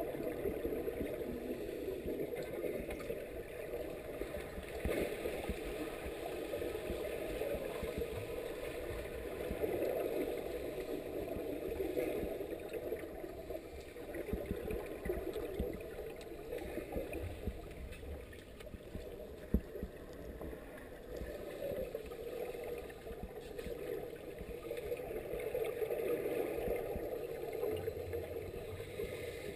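Muffled underwater noise of a swimming pool heard through a camera's waterproof housing: a steady dull rush and rumble, with the gurgle of scuba divers' exhaled bubbles swelling now and then. A single sharp click about two-thirds of the way through.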